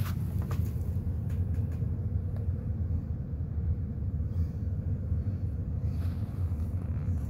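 Steady low rumble of a forced-air furnace running, heard from beside its ductwork, with a few light knocks and scrapes in the first couple of seconds.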